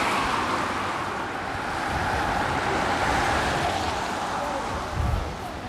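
Busy city street traffic: a steady wash of passing cars, with a short low thump about five seconds in.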